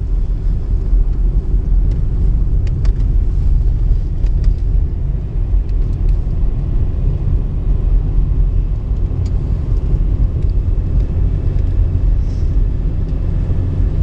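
Steady low rumble of a car driving on a snow-packed road, its engine and tyre noise heard from inside the cabin, with a few faint ticks.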